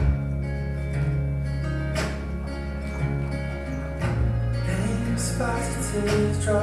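Dance music played over a theatre's sound system, with sustained deep bass notes and an accented hit about every two seconds.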